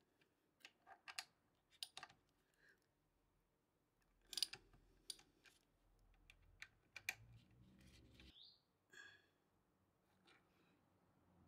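Faint, scattered metallic clicks and light taps of a hand tool and fingers working on a Brembo front brake caliper, with a brief rising squeak about eight seconds in.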